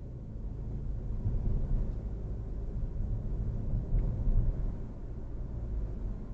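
Car driving and picking up speed on a residential street, heard from inside the cabin: steady low rumble of engine and tyre noise.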